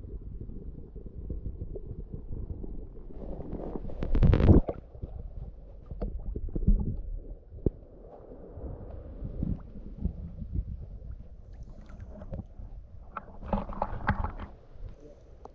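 Water heard through a camera held underwater and then at the surface: muffled low rumbling and gurgling, with a louder rush about four seconds in. Near the end there are splashes of water close to the camera.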